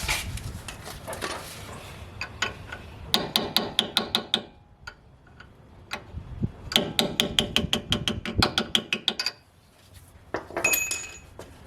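Hammer tapping a seal-installer driver to seat a new rear axle oil seal in the axle tube: quick, even metallic taps, several a second, in two long runs and a shorter burst near the end.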